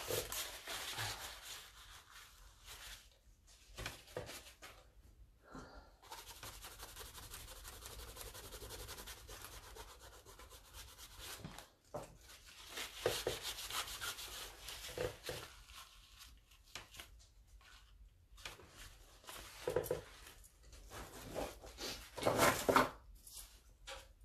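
Hands rubbing and handling paper on a journal page, in irregular scraping strokes, with a long steady stretch about six seconds in and louder passes near the end.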